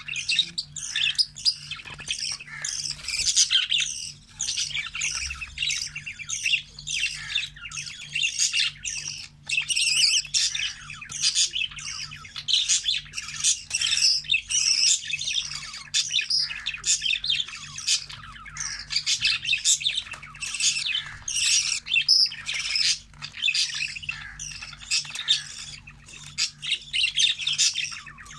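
Budgerigars chattering: a dense, continuous stream of short chirps, warbles and squawks with no pauses.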